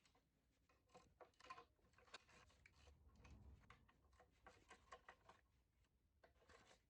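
Near silence with faint, irregular clicks and light knocks.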